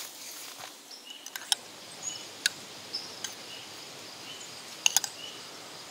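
Metal spoon clinking against a ceramic mug of cut fruit, a few sharp clicks, the last two close together near the end. Short high chirps repeat in the background over a steady outdoor hiss.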